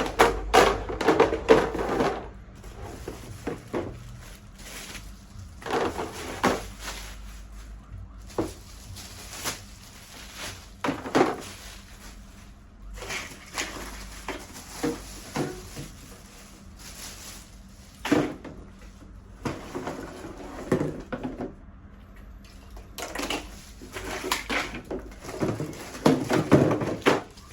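High chair parts being handled, moved about and set down: irregular knocks and clatter in clusters, with some rustling between them.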